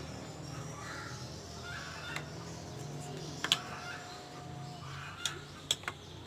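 A few sharp metallic taps and clicks, one about halfway through and three in quick succession near the end, from hand tools on a wood planer as its blades are set, over a low steady hum.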